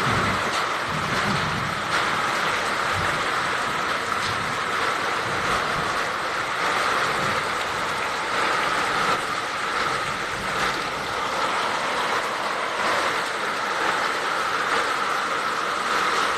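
Heavy rain falling in a steady, dense hiss with scattered small patters.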